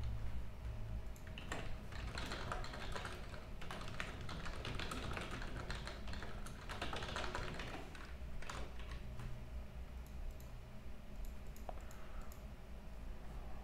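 Typing on a computer keyboard: several quick runs of keystrokes in the first half, thinning to scattered keystrokes later, over a steady low hum.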